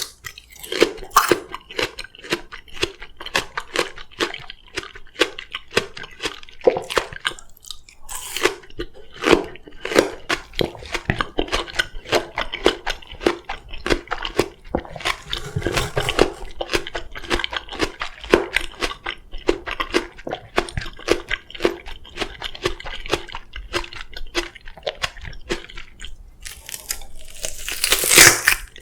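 Close-miked chewing of crisp Korean oriental melon (chamoe): rapid, steady crunching with wet squishing. A louder crunch swells up near the end.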